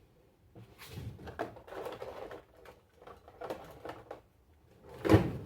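Objects being rummaged through and handled: irregular light clattering and rustling, with a louder knock near the end.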